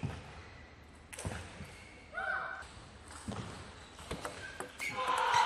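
Table tennis ball struck by rackets and bouncing on the table during a rally: several sharp clicks and knocks, roughly a second apart.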